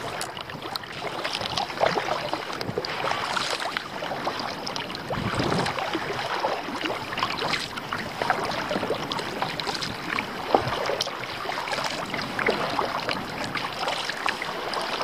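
Water splashing and lapping against a kayak's hull as it is paddled, with many small irregular splashes.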